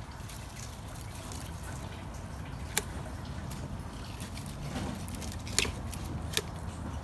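Water trickling and dripping steadily in a hydroponic growing system. Three sharp clicks come in the second half.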